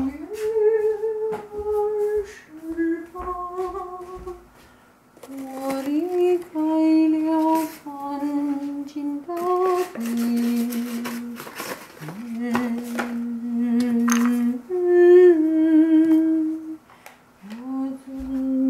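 A person humming a slow tune, holding each note and stepping up and down between them. There are a few brief clattering and rustling noises in between.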